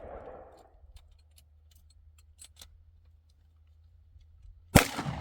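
One loud gunshot about four and three-quarter seconds in, followed by a rolling echo. Before it, the echo of an earlier shot fades out and a few faint clicks are heard.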